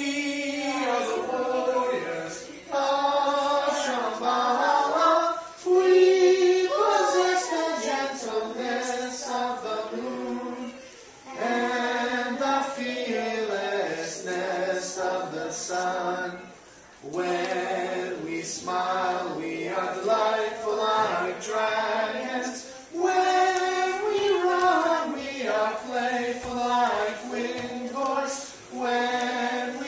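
Children's chorus singing a song together in phrases, with short breaths between the lines.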